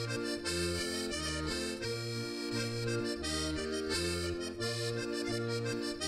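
Diatonic button accordion (organetto) playing a Sardinian folk tune: a melody over bass notes that alternate about twice a second.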